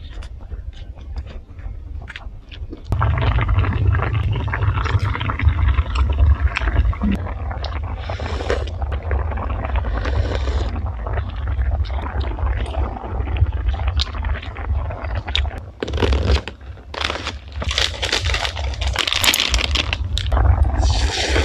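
Close-miked hot-pot eating sounds: sharp clicks at first, then slurping of noodles and of soup from a spoon over a steady bubbling of boiling broth that starts suddenly about three seconds in. Near the end, rustling of a cardboard box.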